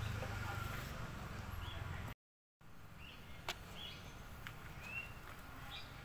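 Outdoor ambience with short, high bird chirps and a few light clicks. A low rumble runs for the first two seconds, then the sound drops out completely for about half a second at an edit.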